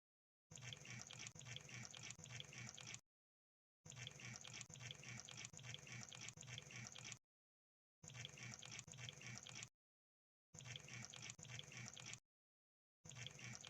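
Crab sound effect: faint, rapid crackling and clicking like bubbling froth, coming in stretches of two to three seconds that break off into dead silence between them.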